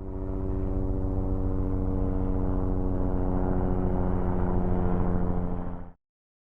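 A propeller aircraft running steadily: a droning hum of evenly spaced tones with a fast pulsing beat. It starts abruptly and cuts off suddenly about six seconds in.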